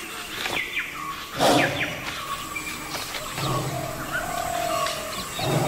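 Birds chirping, with a short loud burst of noise about one and a half seconds in. From about halfway a tiger growls, low and rough.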